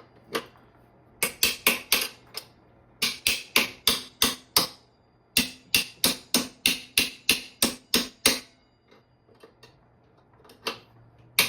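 Metal-on-metal strikes, most likely a hammer tapping, in quick runs of several taps about four or five a second, with short pauses between runs and a longer pause near the end.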